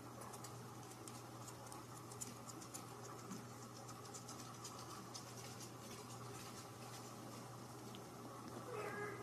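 Faint light scratching and soft clicks as a kitten bats at a dangling pom-pom toy and paws the couch fabric, over a steady low hum. Near the end the kitten gives one short, small mew.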